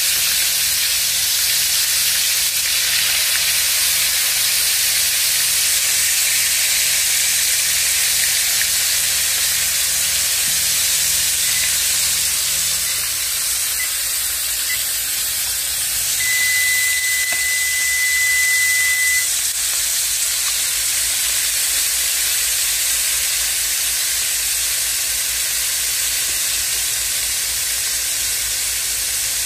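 Frozen flour-coated okra frying in hot Crisco shortening in a wok, a loud steady sizzle and hiss. A little past the middle, one electronic beep from the electric range's control panel holds for about three seconds.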